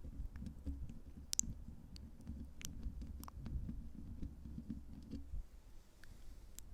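Close-miked ASMR triggers: a low rubbing rumble against the microphone for about five seconds, then easing, with scattered sharp sticky clicks of mouth sounds throughout.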